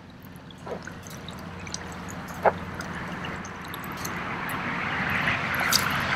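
Water splashing and trickling around an inflatable kayak, swelling over the last few seconds, with a sharp knock about two and a half seconds in.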